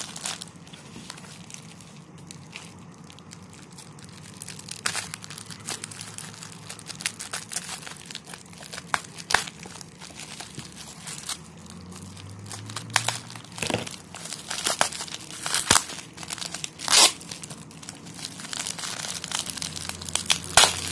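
A clear plastic bag crinkling and crackling as hands squeeze and work at it to get it open. The crackles are sparse for the first few seconds, then come thicker and louder.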